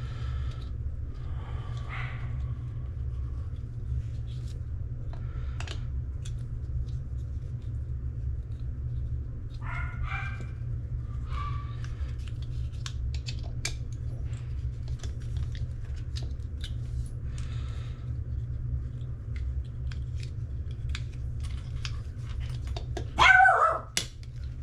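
A dog barking a few times, loudest in a burst near the end, over a steady low hum and the scattered clicks of hand-tool work on a faucet.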